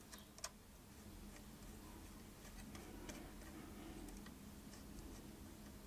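Faint clicks and light scraping of a small screwdriver turning a screw that fastens a metal tab holding a check source to a roentgenmeter's board. One sharper click comes about half a second in, over a low steady hum.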